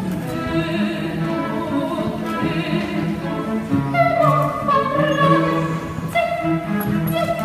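Operatic soprano singing with a string orchestra accompanying; the strings play sustained chords, and a held, vibrato-laden high vocal note comes in about four seconds in.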